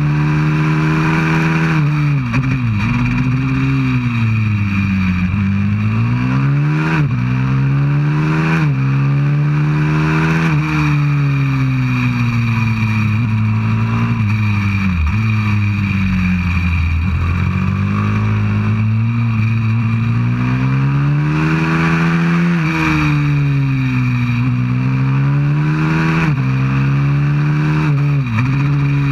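A 190cc single-cylinder four-stroke pit bike engine under hard riding, heard from on board the bike. Its revs climb and fall again and again as it accelerates out of corners and slows into them, with several sudden jumps in pitch.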